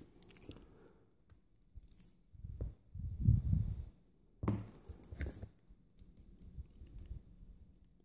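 Small metal clicks and scraping as a rim lock cylinder is handled while a retaining clip is worked off it, with two heavier stretches of bumping and rubbing a little after two seconds in and again past four seconds.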